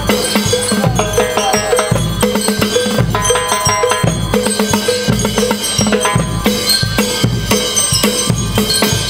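School rhythm band (banda rítmica) playing: bass drum and drum sets keep a steady beat under a bright melody on bell lyres.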